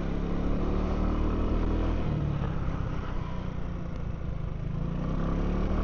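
Genuine Buddy 125 scooter's single-cylinder four-stroke engine running, with a steady road and wind hiss around it, heard through a microphone inside the rider's helmet. The engine pitch dips about two seconds in and rises near the end as the scooter speeds up.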